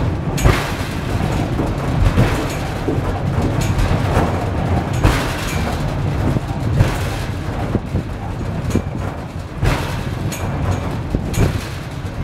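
Pic du Jer funicular car running down its rails with a steady low rumble and a few short knocks.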